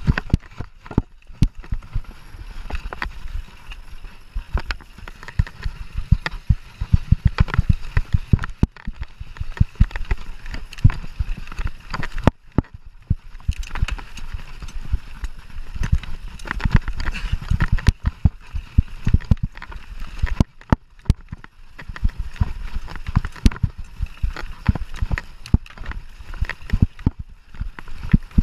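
Mountain bike ridden over rough dirt trail: a dense, irregular rattling and knocking of the bike over bumps with a low rumble, easing briefly about twelve seconds in.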